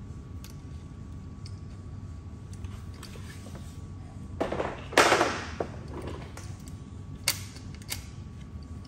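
Hex key working a screw into a metal e-bike skid plate: faint ticks and clicks, a louder scraping clatter about halfway through, and two sharp clicks near the end.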